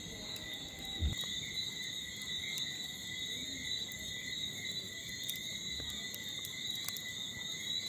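Night insects such as crickets calling in a steady, unbroken high trill, with a brief low thump about a second in.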